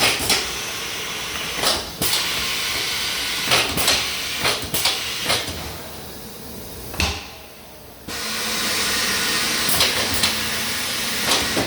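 Steady hiss of air from a tyre-changing machine, with sharp clanks and knocks of tools and metal against the wheel rim as a low-profile tyre is worked off. The hiss fades about six seconds in and comes back suddenly near eight seconds.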